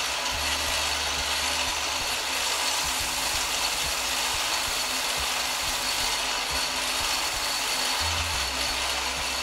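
Craftsman 4-inch belt / 6-inch disc sander running steadily, with a hard carbon-fibre-filled nylon 12 3D print pressed against its sanding belt to grind the warped bottom flat.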